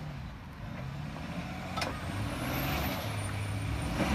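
Pickup truck engine running under load as it tows another truck across rough ground, a steady low hum that grows gradually louder. A sharp click is heard about two seconds in.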